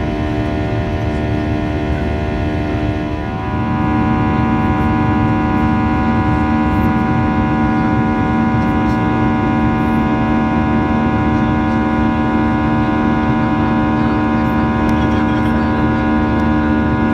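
Boeing 737-800's CFM56-7B turbofan engines droning steadily in the cabin during the climb after takeoff, a dense set of steady tones over a low rumble, while the flaps and slats retract. About three and a half seconds in, the tones shift and the sound steps up louder, then holds steady.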